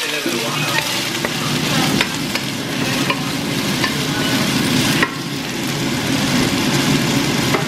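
Diced chicken sizzling in a stainless-steel frying pan while a wooden spoon stirs it, the spoon knocking against the pan now and then. About five seconds in a sharp knock comes as the spoon is set down in the pan, and the sizzling goes on a little quieter.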